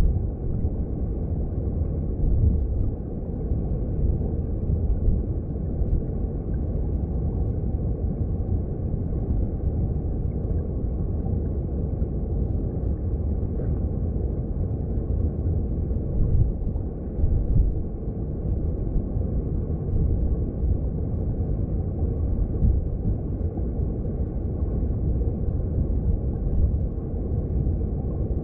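Underwater sound of a mountain stream: a steady low rumble of flowing water heard through a hydrophone, with faint bubbling and no distinct events.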